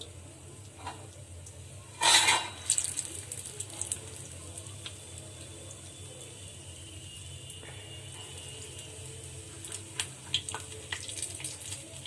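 Medu vada batter deep-frying in hot oil in an iron kadai: a faint, steady sizzle with scattered crackles. About two seconds in there is a short, loud burst of sizzling as another ball of batter goes into the oil.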